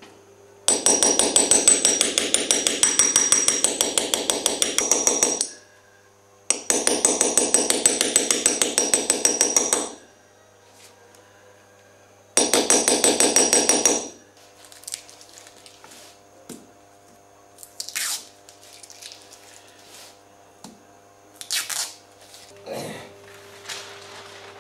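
Small hammer rapidly tapping a steel punch, dotting a pattern into copper sheet through a paper template. The taps come several a second with a bright metallic ring, in three runs with short pauses between, then stop about two-thirds of the way in, leaving only a few scattered light knocks.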